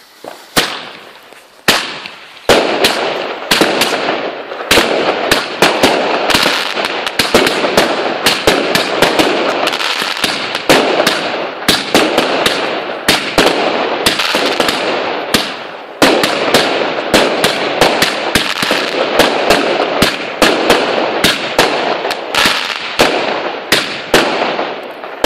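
Two 16-shot consumer fireworks batteries (cakes) firing: after a couple of single shots, a dense run of launch thumps and aerial bursts with crackle sets in about two and a half seconds in and keeps going. Only two of the three linked batteries have lit.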